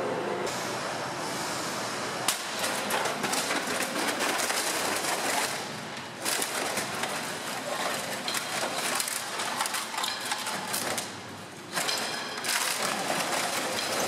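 Multi-shaft crusher shredding a washing machine: continuous grinding and crunching of sheet metal with repeated clanks and bangs as the rotating shafts tear the cabinet apart. It eases off briefly about six seconds in and again near twelve seconds.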